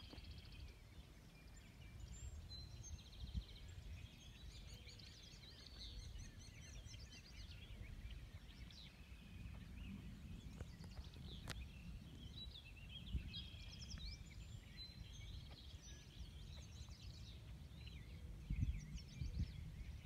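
Several birds chirping and trilling in the open, with short calls scattered throughout over a faint low rumble. A single sharp click comes about halfway through.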